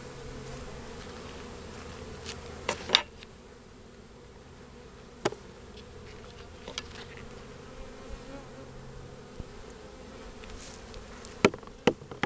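Swarm of honeybees buzzing around an open hive, a steady hum. A few sharp clicks cut in about three seconds in, again about five seconds in, and twice near the end.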